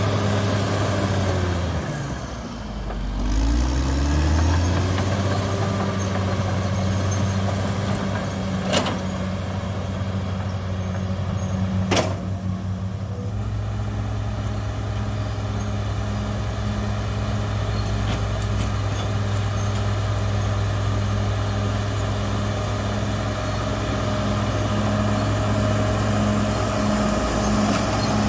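Caterpillar D6R XL bulldozer's diesel engine running steadily under work, its speed sagging about two seconds in and climbing back up. Two sharp knocks come through over the engine in the middle.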